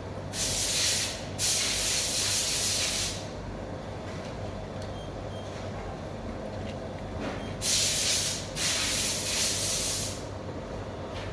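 Four short hissing blasts from a pressurised spray can onto a circuit board, in two pairs a few seconds apart, cleaning the freshly soldered joints.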